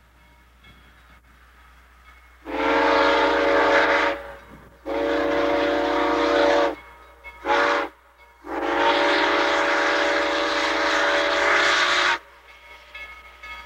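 Steam whistle of K-37 locomotive #497 blowing four blasts: two long, one short, then one long. This is the standard warning for a road grade crossing.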